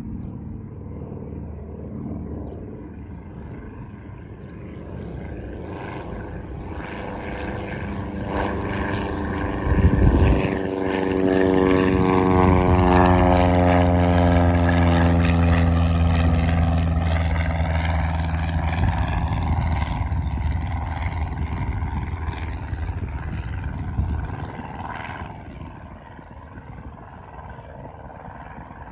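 Cessna 177RG Cardinal RG's four-cylinder Lycoming IO-360 engine and propeller at takeoff power, climbing out and passing overhead: the drone swells, falls in pitch as the plane goes by, then fades away. A brief low thump about ten seconds in.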